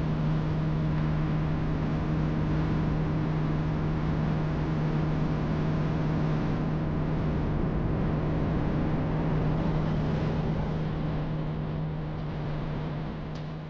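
Boat's outboard motor running steadily with a low hum over rushing noise, fading down near the end.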